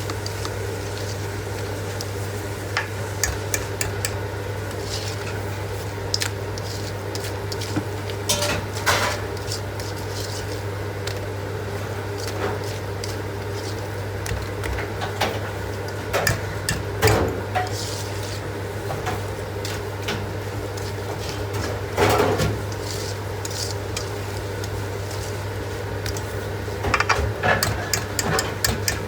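Kitchen utensils and dishes clinking and clattering in scattered bursts, over a steady low hum.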